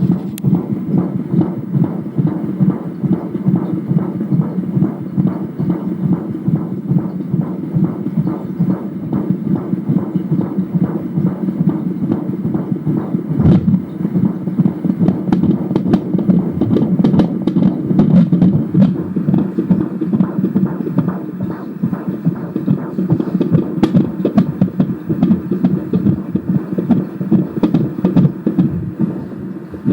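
Fetal heartbeat picked up by an Angel Sounds handheld fetal doppler at 18 weeks 6 days of pregnancy: a fast, steady pulsing that briefly drops out about halfway through.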